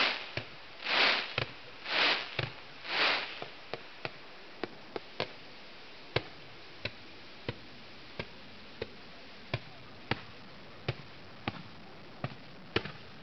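Fireworks display going off: three loud whooshing bursts of hiss in the first few seconds, then a run of sharp single bangs and cracks, about one or two a second, over a faint steady hiss.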